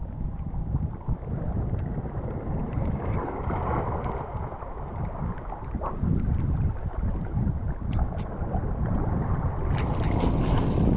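Wind buffeting the microphone in a rumbling roar, with sea surf in the background. A brief louder hiss comes just before the end.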